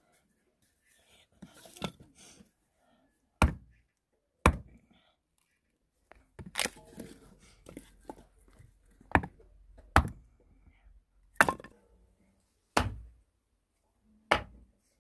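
A series of about eight sharp knocks or chops, a second or so apart and irregularly spaced, with quieter clatter between them, in a small echoing space.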